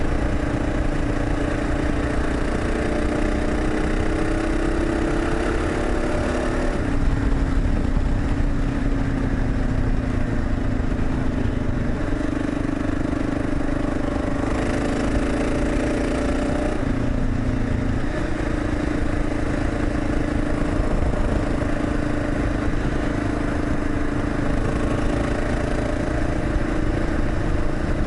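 Kawasaki KLR650's single-cylinder four-stroke engine, fitted with a Lexx aftermarket exhaust, running under way from the saddle. Its pitch rises through the first several seconds, drops about a quarter of the way in, and then holds fairly steady, with a brief change in engine speed a little past halfway.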